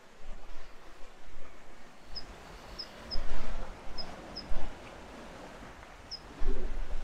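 Outdoor ambience: irregular gusts of wind buffeting the microphone, the strongest about three, four and a half and six and a half seconds in. Seven short, high chirps sound at irregular intervals over the gusts.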